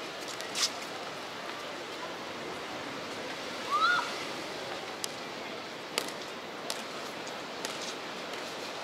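Steady seaside ambience: a wash of ocean surf breaking on the shore. A few light clicks, and a short high rising-and-falling call about four seconds in.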